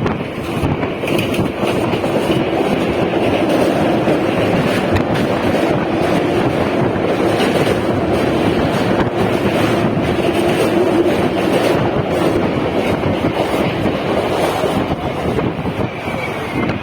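ICF-built EMU electric train running past at close range: a loud, steady rumble of wheels on rails with a low hum.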